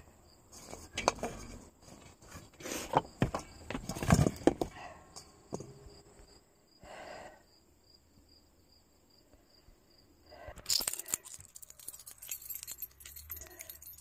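Irregular knocks and rustling from handling and walking, then, after a quiet stretch, a ring of metal keys jangling and clinking near the end.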